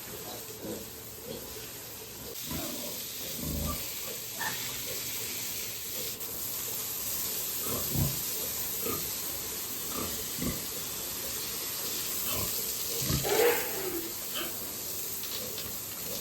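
Pigs grunting every couple of seconds, the loudest call about thirteen seconds in, over a steady hiss.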